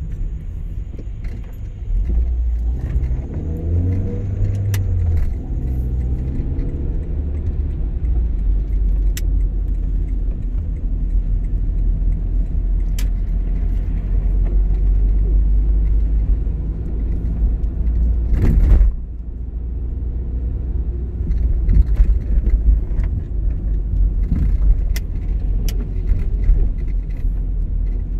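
Car driving on a wet road, heard from inside the cabin: a steady low rumble of engine and tyres, with the engine note rising as it pulls away a few seconds in. A brief loud rush of noise about two-thirds of the way through, and light clicks and rattles now and then.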